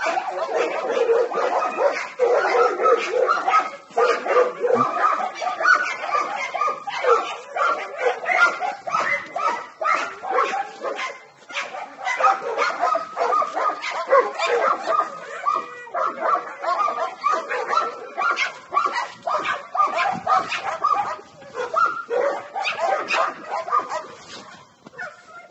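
Dogs barking and yipping almost without pause, short overlapping calls throughout.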